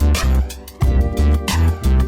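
Background music with a heavy bass line, electric guitar and a programmed drum beat.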